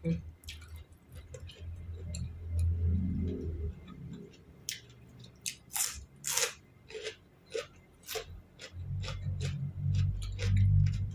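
Close-up eating sounds: a person chewing and crunching a spicy seafood salad with raw vegetables, in a run of short crisp crunches and mouth smacks, loudest about six seconds in.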